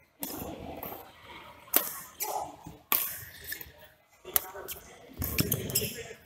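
Badminton rackets striking a shuttlecock during a doubles rally: several sharp pops about a second apart.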